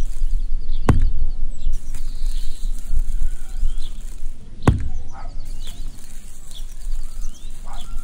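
Small birds chirping over a low, steady rumble, with two sharp knocks, one about a second in and one near five seconds in. The first knock comes as a small tin bucket is set down in a toy tractor's trailer.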